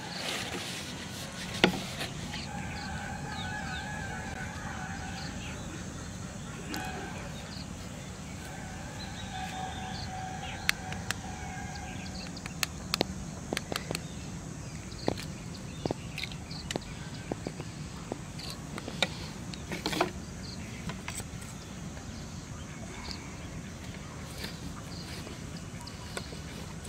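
Short clicks and light knocks of PVC pipe and plastic fittings being handled and fitted together, over a steady low hum. A long steady tone sounds twice in the first half.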